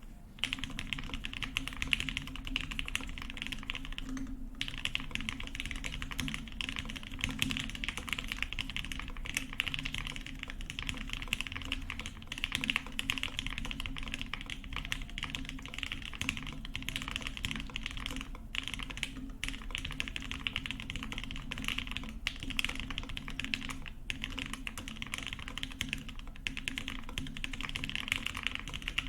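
Continuous fast typing on a Meridian mechanical keyboard in its top-mount configuration: an aluminum plate, filmed CannonKeys Lavender linear switches with 62 g springs, and GMK ABS keycaps, giving a dense run of keystrokes. There are brief pauses about four and twelve seconds in.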